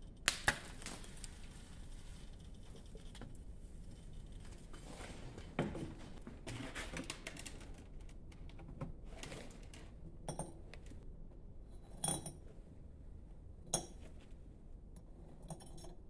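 Scattered metallic clinks and knocks of steel pouring tongs and a crucible touching metal ingot molds and an electric melting furnace during a molten copper pour: two quick clinks at the start, then single knocks every couple of seconds.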